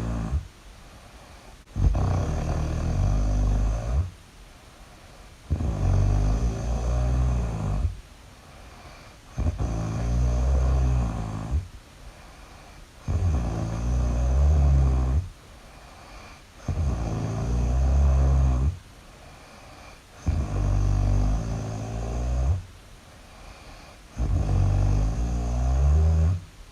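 Loud, deep snoring in a slow, steady rhythm: seven snores, each about two seconds long, one every three and a half to four seconds, with quieter pauses between.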